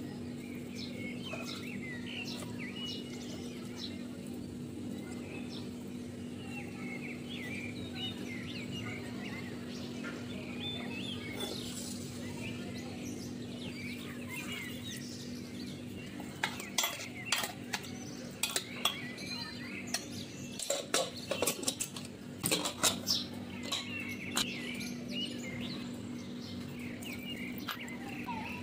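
Metal clinks and knocks in an aluminium pressure cooker pot, a run of sharp clinks in the second half, over a steady low hum, with faint bird chirps early on.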